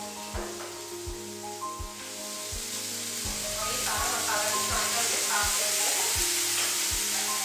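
Marinated chicken cubes sizzling as they fry in a pan, the sizzle growing louder about two seconds in.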